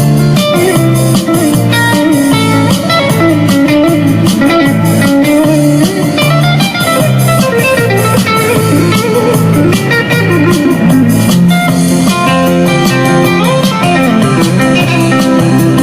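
Background music: a blues-style electric guitar tune over bass and a steady beat.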